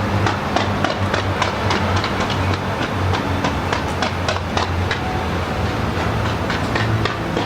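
Fireworks going off in a quick, irregular string of sharp bangs and crackles, several a second, over a steady low hum.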